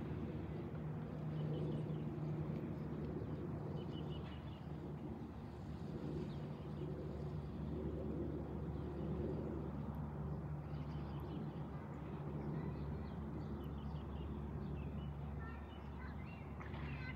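Turboprop airliner flying overhead: a steady low drone with a few held tones. Faint bird chirps come in about four seconds in and again near the end.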